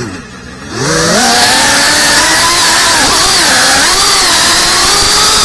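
FPV quadcopter's motors and propellers whining, the pitch rising and falling with the throttle. It is low at the start after a throttle cut, climbs steeply about a second in, then holds loud, wavering up and down as the drone manoeuvres.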